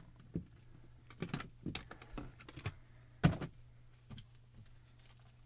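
Scattered light clicks and taps as a bar magnet is handled on a magnetic stamping platform, with one sharp clack a little over three seconds in.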